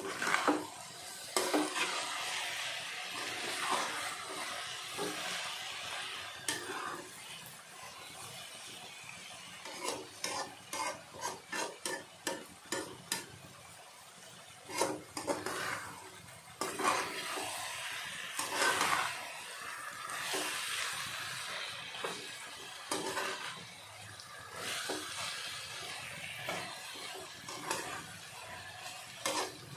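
A spatula stirring potatoes and fenugreek leaves frying in a kadhai: repeated scrapes against the pan, with a quick run of strokes in the middle, over a steady sizzle of frying in oil.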